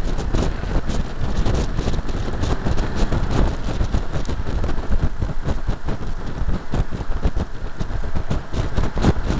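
Wind buffeting the microphone of a bumper-mounted camera on a 1988 BMW 325is at track speed, mixed with the car's road and engine noise; no clear engine note stands out.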